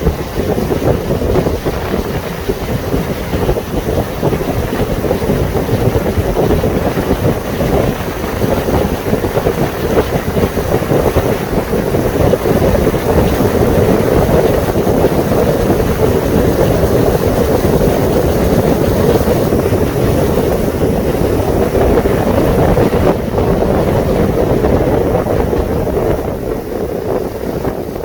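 Wind buffeting the microphone aboard a moving lake passenger boat, over the boat's steady running noise and water along the hull.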